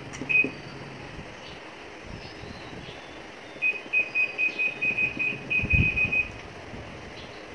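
Whirlpool LSP880GP washing machine control panel beeping: one short beep, then, a few seconds later, about a dozen quick beeps at the same pitch, about five a second, as the buttons are pressed one after another. This is the new control board answering the button presses during the post-repair test. A low thump comes near the end of the run.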